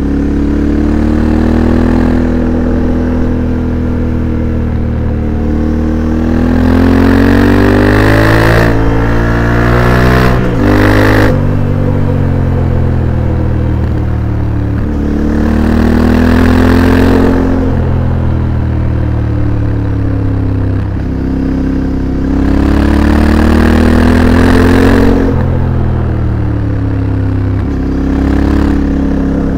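Yamaha Ténéré 700's 689 cc parallel-twin engine through an HP Corse SP-1 titanium slip-on exhaust, heard onboard while riding, with wind noise on the microphone. The engine note climbs under throttle, drops sharply at upshifts and falls away as the rider rolls off for bends, over and over.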